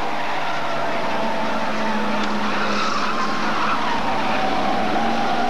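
A pack of Hot Stox racing cars running round the oval, their engines blending into one steady drone with engine notes that shift slowly in pitch.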